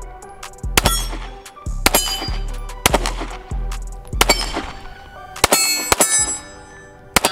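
A string of 9mm shots from a Glock 43X pistol, about one a second with some quick pairs, each followed by the ringing clang of struck steel targets.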